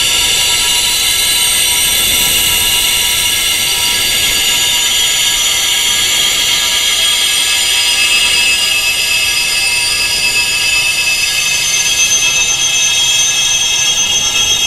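Wind chimes tuned to high, tinnitus-range pitches, ringing continuously: many high metallic tones overlap into a dense, unbroken shimmer that slowly shifts as some tones fade and others swell.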